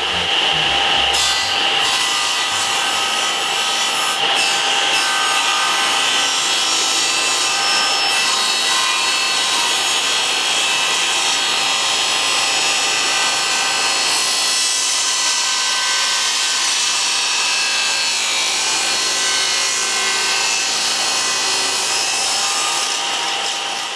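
Old cast-iron table saw with an induction motor running at full speed with a steady high whine, its circular blade ripping lengthwise through a thick wooden beam as it is fed along the fence with a push stick.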